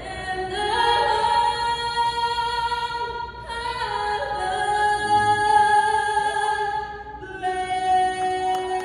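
Background music with a voice singing long held notes in three phrases.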